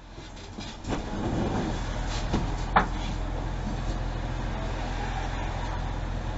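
Steady low hum inside a stationary tram's driver's cab, with a few short knocks in the first three seconds, the sharpest near three seconds in.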